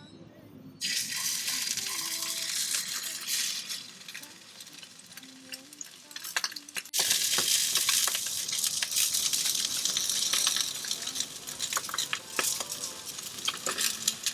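Salmon frying in hot oil in a pan, sizzling and crackling. The sizzle starts suddenly about a second in, eases off for a while, then comes back louder about halfway through.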